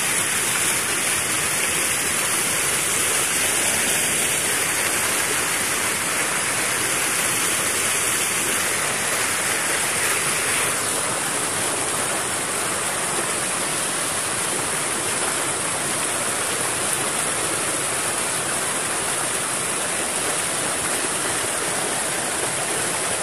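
Fast-flowing floodwater rushing and churning into white foam around people wading through it: a steady, even rush of water.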